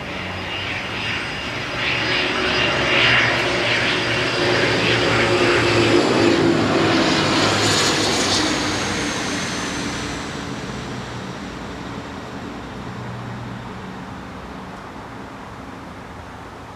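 An aircraft passing overhead: its engine grows louder for several seconds, peaks about halfway through with a drop in pitch, then slowly fades away.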